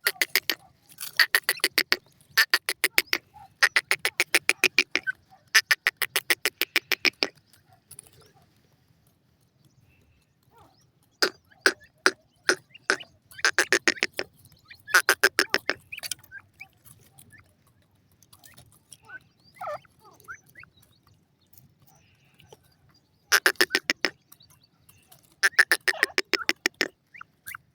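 Francolin (teetar) calling: loud bursts of rapid, harsh pulsed notes, each about a second long, repeated in several bouts with pauses of a few seconds between them.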